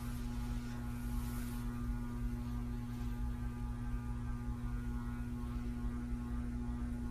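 Steady electrical or machine hum, one low pitch with a ladder of fainter overtones above it over a light hiss.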